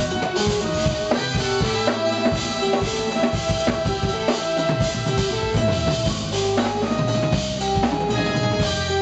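Live jazz-fusion band playing: a saxophone and trumpets play a melody in held notes over a busy drum kit with bass drum and snare.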